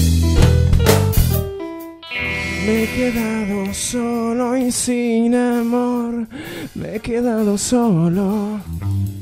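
A live band with drums, bass and guitar plays, then breaks off about two seconds in. A man then sings long, wavering lines with vibrato into a microphone over a held guitar chord.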